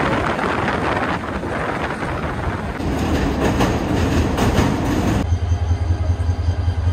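Train noise: the steady rushing rumble of a moving train, then an abrupt change about five seconds in to a low, rhythmic throb.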